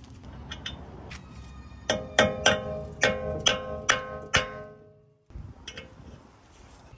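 Hammer blows on a tool set in the seized brake disc retaining bolt of a BMW M4. There are a few light taps, then about eight sharp metallic strikes in quick succession, each with a ringing after it, to shock the stuck bolt loose.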